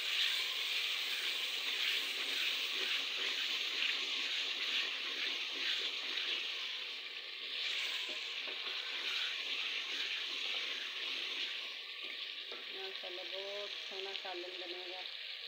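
Boiled potatoes and eggs frying in oily masala in an aluminium pot, sizzling steadily as a wooden spoon stirs them during the bhunai (frying-down) stage. The sizzle eases somewhat after about twelve seconds.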